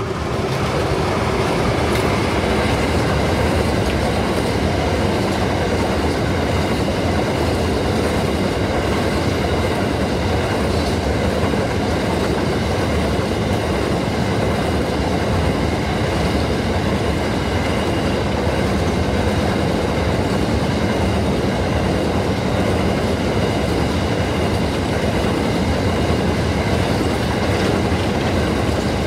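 A CBH grain train passing close by: the locomotives go by as the sound rises sharply at the start, then a long string of grain hopper wagons rolls past with a loud, steady rumble of wheels on rail.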